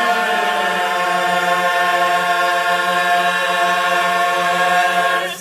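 Men's barbershop chorus singing a cappella, holding one long final chord that cuts off together near the end.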